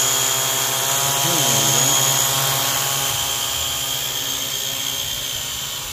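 Syma X8 Pro GPS quadcopter's electric motors and propellers buzzing steadily with a high whine as it flies close by, slowly growing a little quieter toward the end.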